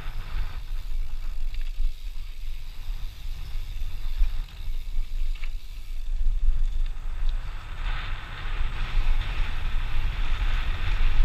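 Wind buffeting the microphone of a camera riding on a mountain bike descending a dirt trail, a constant low rumble, with tyres running over loose dirt and stones. A stronger hiss builds from about eight seconds in.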